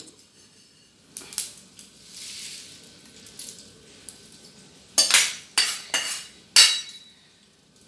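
Roasted lentils and rice tipped from a wok into a steel plate, the grains rattling and hissing as they pour. Then a few loud metal scrapes and knocks of the wok and utensil against the plate, about five to seven seconds in, as the last grains are scraped out.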